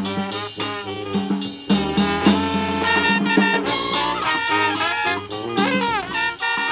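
A street brass band playing live, with trumpets and other horns over sustained low bass notes.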